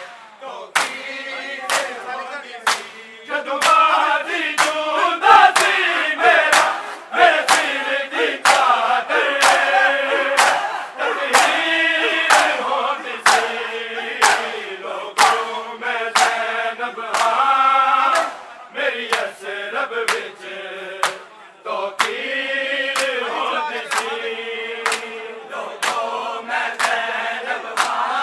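Crowd of men chanting a lament in unison while beating their chests with open hands to a steady beat, the rhythmic mourning of Shia matam.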